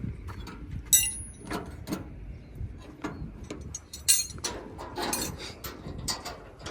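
Irregular metal clinks and knocks from the conveyor of a corn sheller being taken off by hand. The loudest is a sharp, ringing clink about a second in.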